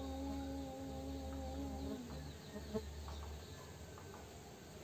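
A steady held tone with overtones for about the first two seconds, over a low hum, with faint insect buzzing around a stingless-bee hive.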